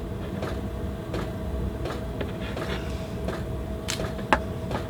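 Light clicks and knocks of a small gas soldering torch being handled while its attachment is changed, with one sharper click a little past four seconds, over a steady background hum.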